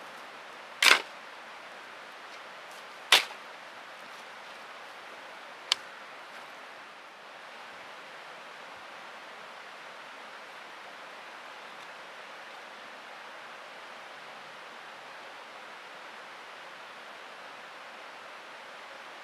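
Three sharp knocks, about a second, three seconds and six seconds in, the last one lighter, then only a steady background hiss.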